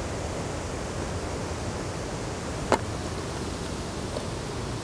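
A metal mess tin set down on stony ground, with one sharp clink about two and a half seconds in, over a steady rushing hiss.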